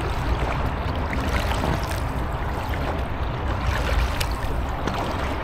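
Kayak paddle strokes in calm canal water, with water trickling and splashing off the blades and along an inflatable kayak's hull, over a low rumble.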